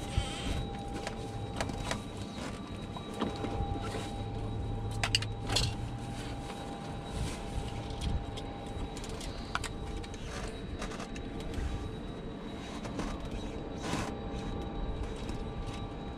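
Steady electrical hum and whine of a Cessna 172's cockpit with the master switch on and the G1000 powered up, with scattered clicks and knocks of switches and handling.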